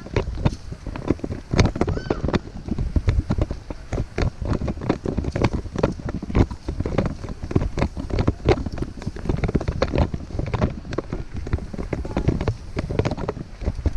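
Irregular knocks and rustling of footsteps and a hand-held camera on the move, with wind buffeting the microphone in a low rumble.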